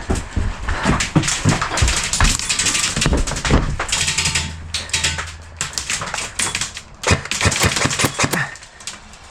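Airsoft gunfire: electric airsoft guns (AEGs) firing in rapid clattering bursts, with sharp knocks and cracks in between.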